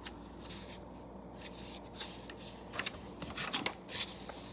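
Paper rustling and soft handling sounds, typical of a picture book's page being turned, in a few short bursts, most of them in the second half.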